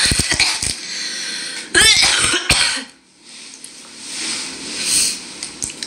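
A person coughing, with a loud burst about two seconds in.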